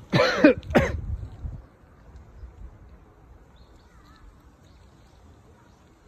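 A crow cawing twice in quick succession, harsh calls right at the start, the first longer than the second.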